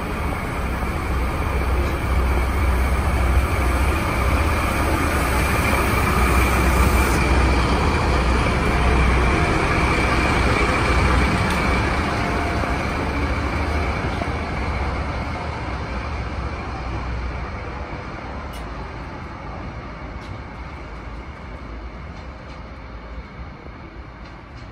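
DD51 diesel-hydraulic locomotive pulling away: its twin diesel engines run with a heavy low rumble. The rumble grows loudest as the locomotive passes close by, then fades steadily as it draws away.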